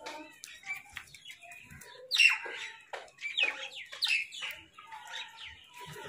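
House crows calling: a string of short caws, one at a time, the loudest about two seconds in.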